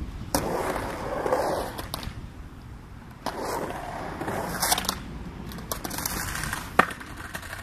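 Skateboard wheels rolling over concrete ramps and flat ground, in about three runs with lulls between. A single sharp clack of the board against the ramp near the end is the loudest sound.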